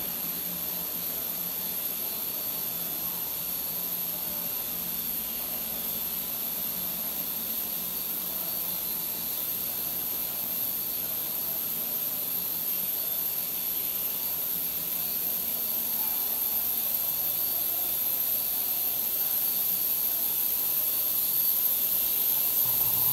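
Steady hissing noise of running process machinery in a solvent extraction plant, with a thin high whine over it, growing slowly louder toward the end.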